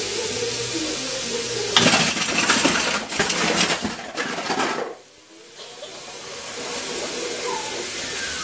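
Tap water running into a stainless steel sink, with dishes clinking and clattering against each other and the sink as they are washed, from about two seconds in. Near the middle the sound drops away suddenly and the running water slowly builds back up.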